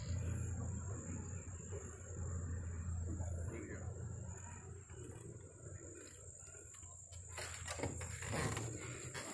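Steady high-pitched insect drone over a low rumble of wind on the microphone, with a few knocks and scuffs near the end.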